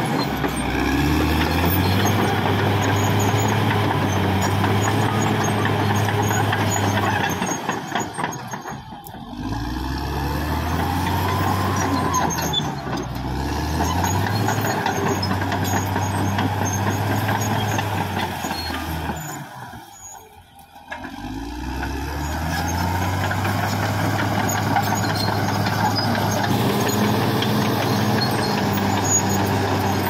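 Caterpillar D6R XL crawler dozer's diesel engine running under load, its pitch rising and falling as the revs change. The sound drops away sharply twice, about a third and two thirds of the way through, then picks up again.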